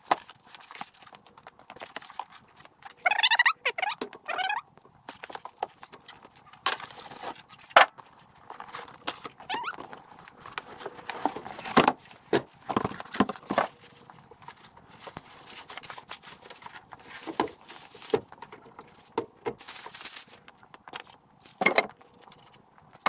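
Unpacking a chop saw from its box: cardboard and packing being pulled out, plastic wrap rustling, and scattered knocks as parts and the saw are set down on the bench. A few high squeaks come about three to four and a half seconds in.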